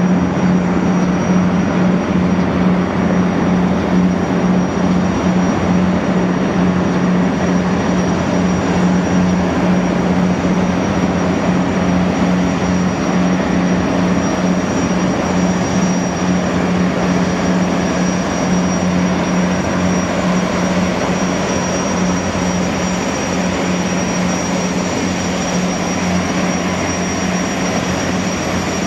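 Allison 501-KF gas turbines of a Boeing Jetfoil running steadily: a loud low hum with a thin high turbine whine above it, easing slightly in level toward the end.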